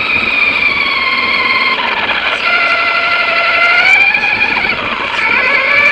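Whine of the Arrma Big Rock 3S RC truck's sensored brushless motor and drivetrain, its pitch rising and falling with the throttle as the truck drives.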